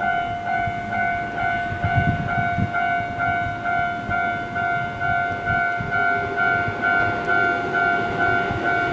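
Japanese level-crossing warning bell ringing: a steady electronic ding repeating about two to three times a second. The low rumble of an approaching Keihan train runs underneath.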